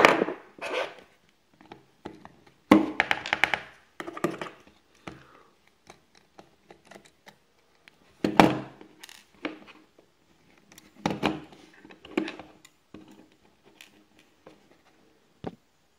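Handling noise of a mobile phone being taken apart on a tabletop: irregular clicks, taps and thunks as the plastic-and-metal phone body and a screwdriver are moved, knocked and set down, coming in a few short clusters with a single sharp click near the end.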